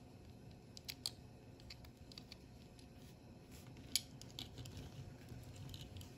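Faint small clicks and taps of a 1/64 diecast model car being handled, its tiny opening door and rear panel moved between the fingers. There are a handful of sharp clicks, the loudest about four seconds in.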